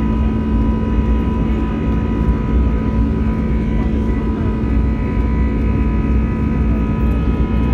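Airliner cabin noise from a window seat: the jet engines' steady drone, with steady whining tones over it.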